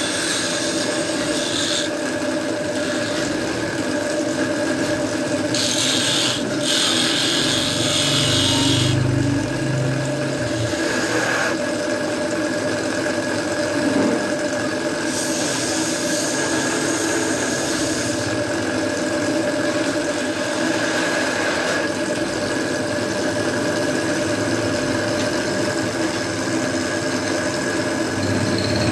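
Belt-driven wood lathe running with a steady hum, while a hand-held gouge cuts the spinning wooden rolling-pin (belan) blank in hissing, scraping spells near the start, about six to nine seconds in, and again around fifteen to eighteen seconds in.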